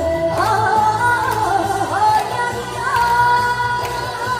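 Korean trot song performed live: a female voice holds a long, bending melody with pitch slides over a backing track.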